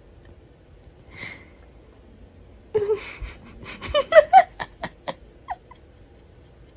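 A woman gives a short cry and breaks into breathy laughter, a run of quick pulses that fade out.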